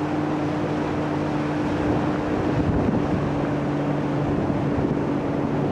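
A motorboat's engine running steadily while the boat is underway, heard from on board as a steady hum. Under it is a rush of wind and water noise.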